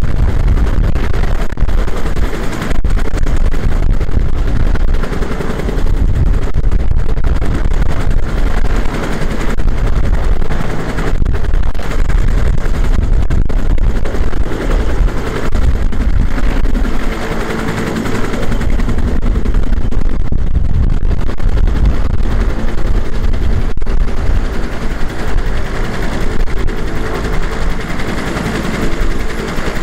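Bell AH-1S Cobra attack helicopter's two-bladed main rotor chopping loudly in a fast, continuous beat.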